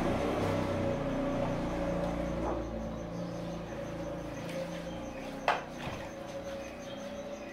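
A ladle clinks sharply once against a large steel cooking pot about five and a half seconds in, with a few fainter knocks before it, over a steady hum and a low street rumble that fades.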